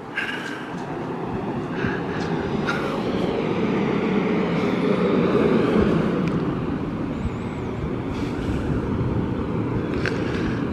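A vehicle passing by. Its steady noise swells to a peak about halfway through, then slowly fades.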